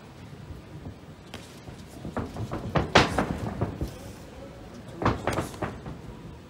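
Knocks and thuds from two MMA fighters exchanging in the cage: gloved strikes landing and feet on the canvas. They come in two flurries, the loudest blow about three seconds in and another cluster about five seconds in.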